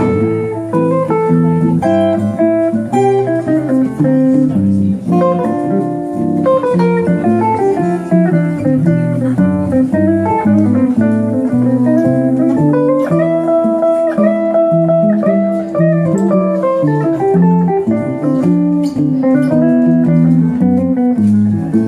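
Live instrumental duet of a steel-string acoustic guitar and a hollow-body electric guitar, both played continuously with plucked, shifting note lines and no singing.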